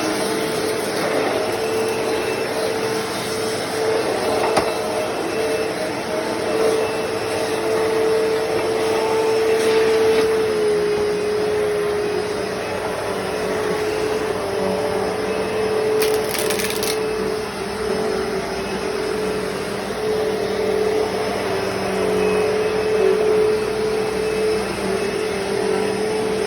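Hoover Deluxe Elite Rewind upright vacuum cleaner running steadily while vacuuming carpet, its motor giving a steady whine that drops slightly in pitch about ten seconds in. A brief hiss about sixteen seconds in.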